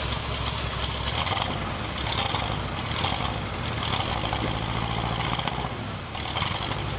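1979 Ford F250's 351M V8 running rough on a newly installed carburetor, chugging just enough to keep it alive, with a hissing rush that swells and fades about once a second.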